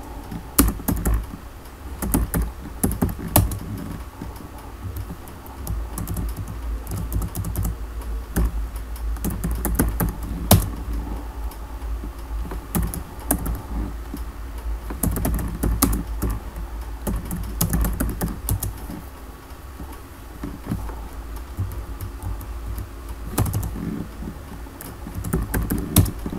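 Computer keyboard typing in irregular runs of keystrokes, over a steady low hum.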